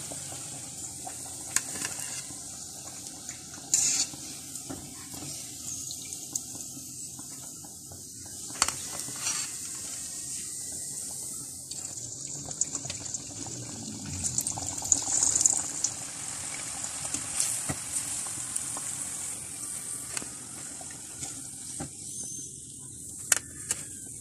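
Kachori deep-frying in hot oil in a kadai: a steady sizzle, with occasional sharp clicks and knocks of the metal skimmer against the pan.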